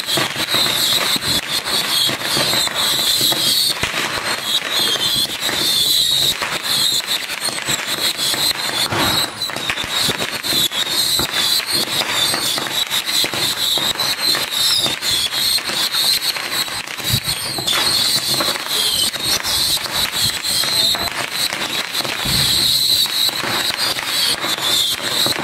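A firework cake of more than 5000 tiny whistling rockets (babypijlen) firing without a break. A continuous shrill whistle wavers around one high pitch over a dense, rapid crackle of launches and pops.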